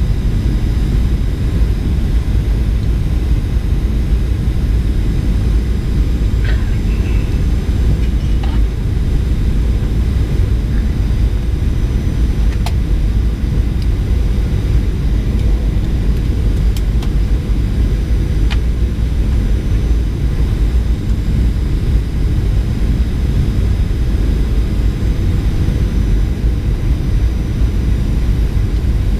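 Steady cabin noise inside a Boeing 737-800 airliner on approach: its CFM56-7B turbofan engines and the airflow make an even, low noise, with a few faint ticks from the cabin.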